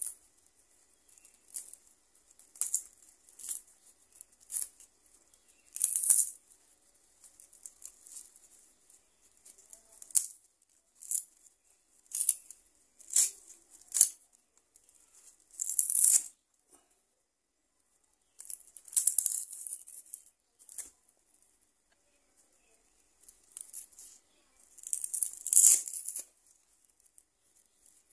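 Dried cattle leg tendon being pulled apart by hand into sinew fibres: a series of short, dry, hissy tearing rasps as the fibres separate, coming irregularly about a second apart with a few longer pauses.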